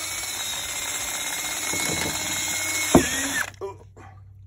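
DeWalt cordless drill spinning a rubber-finger plucker attachment to strip feathers from a scalded turkey, its motor whining steadily. It stops about three and a half seconds in.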